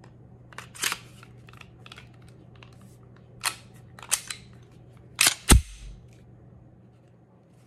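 A Glock 19 Gen 3 slide being fitted onto a PSA Dagger polymer frame and worked by hand: scattered sharp clicks and clacks, with two hard clacks close together about five seconds in, the second the loudest.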